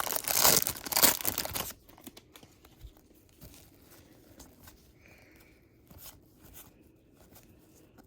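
A trading card pack wrapper being torn open, a loud crinkling tear for the first second and a half or so, followed by faint rustles and light ticks of the cards being handled.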